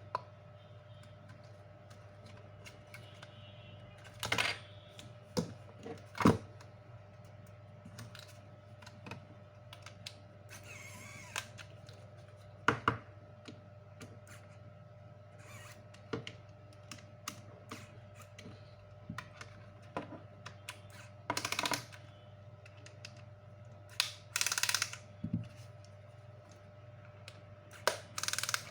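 Irregular clicks, taps and short scraping or rustling sounds of small parts and tools being handled at a repair bench, over a steady low hum.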